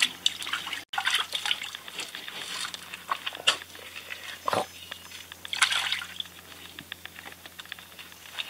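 Wet splashing and dripping, with scattered small clicks and a single thump about four and a half seconds in, as a gloved hand handles a freshly speared sweetlips fish at the waterline. A faint steady low hum runs underneath.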